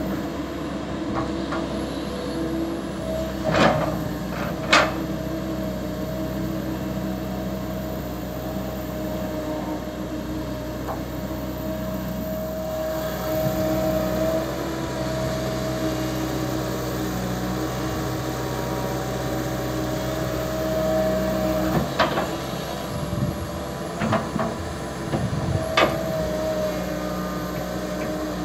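Komatsu PC200LC hydraulic excavator's diesel engine running steadily under digging load. Sharp knocks from the bucket and arm come twice about four seconds in and several times near the end.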